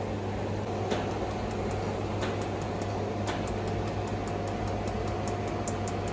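Jewelry laser welder firing pulses at two steel screws being welded: sharp, faint clicks, a few single shots at first, then from about halfway a regular run of about three to four a second. A steady hum from the machine's cooling fans runs underneath.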